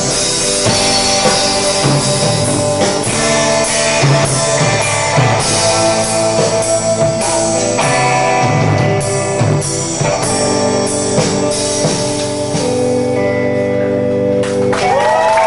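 A live rock band, electric guitar and drum kit, plays the closing bars of a song: strummed electric guitar over drums with regular cymbal hits. The drums thin out to held, ringing guitar notes late on, and a high rising whistle-like tone comes in near the end.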